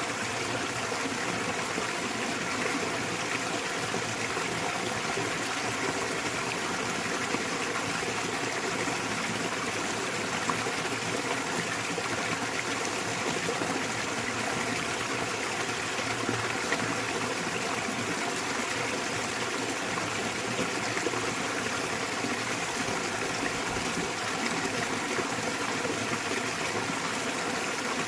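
Small waterfall splashing into a mountain stream: steady rushing and trickling water.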